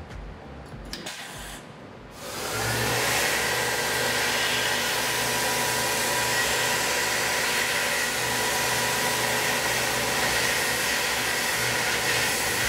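Tormach 1100M CNC mill cutting a small part in the vise. About two seconds in, a steady machine whine with a few fixed tones comes in, along with the hiss of the air-fed mist coolant nozzles aimed at the cutter.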